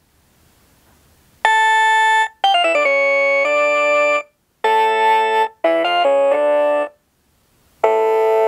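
Lionel Halloween sound boxcar's sound module, run off a 9-volt battery, playing electronic keyboard music. It starts about a second and a half in: held chords and quick falling runs of notes in phrases of about a second, each cut off abruptly, with short silent gaps between them.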